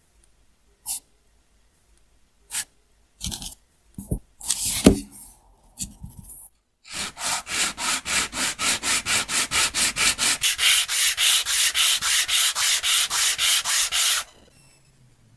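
A small rosewood block is rubbed by hand on sandpaper. First come a few separate scrapes and knocks. From about halfway through there is a steady run of quick back-and-forth sanding strokes, about four a second, which stops shortly before the end.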